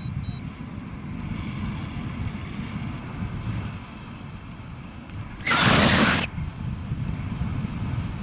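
Wind rumbling on the microphone in flight, with a sudden loud rush of noise about five and a half seconds in that lasts under a second and cuts off.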